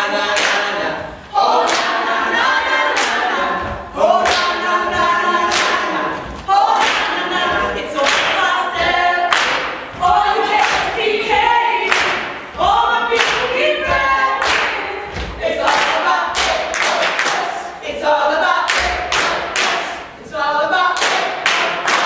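Step team performing: a group chanting in unison, punctuated by sharp stomps and claps.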